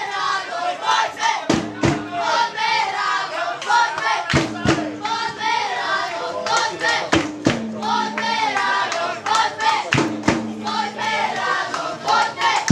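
Football supporters singing and chanting together in chorus, with pairs of loud beats every few seconds.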